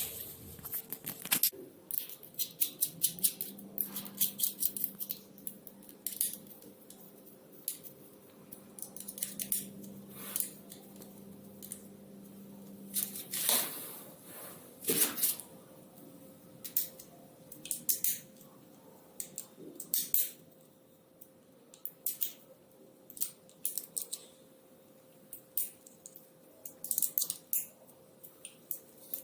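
Irregular sharp clicks and light metallic taps from hand tools and bicycle parts being handled during e-bike assembly, such as an Allen wrench on the handlebar screws.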